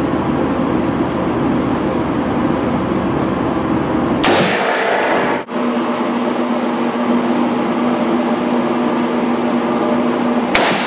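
Two rifle shots from a DPMS AP4 .308 AR-10-style rifle, about four seconds in and again near the end. Each is a sharp report with a short echoing ring off the walls of an indoor range, over a steady background drone.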